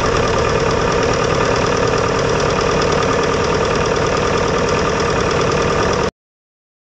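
Light aircraft piston engine running steadily at low taxi power, heard close up from behind its propeller; the sound cuts off suddenly about six seconds in.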